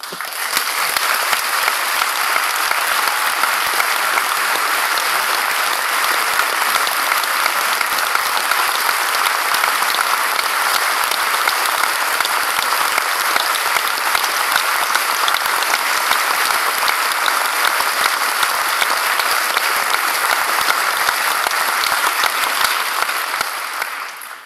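Large audience applauding steadily, a dense patter of many hands clapping, which fades out near the end.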